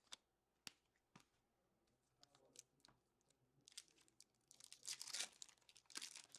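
Faint crinkling and tearing of a foil trading-card pack wrapper being opened, after a few light clicks; the crinkling builds over the second half and is loudest around the middle of it.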